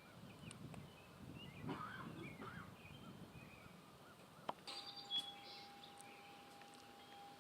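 Quiet outdoor ambience with faint bird chirps. About two-thirds of the way through, a click is followed by a steady, chime-like ringing tone that holds.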